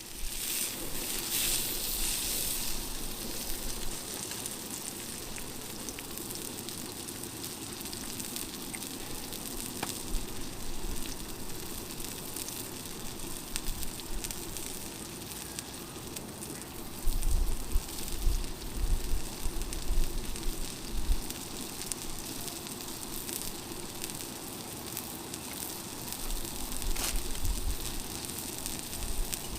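Wood fire crackling in a Winnerwell titanium wood-burning stove: a steady hiss with scattered small pops. A cluster of low thumps comes a little past halfway.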